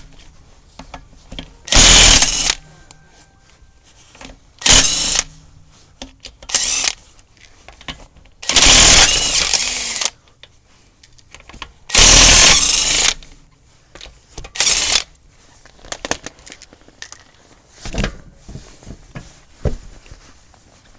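Impact wrench running on the lug nuts in a string of short bursts, about seven in all, the longest about a second and a half, as a wheel is swapped for the spare.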